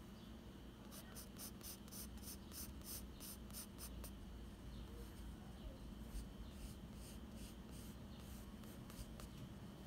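Graphite pencil scratching on sketchbook paper in quick hatching strokes, about four or five a second for a few seconds, then fainter, more scattered strokes in the second half.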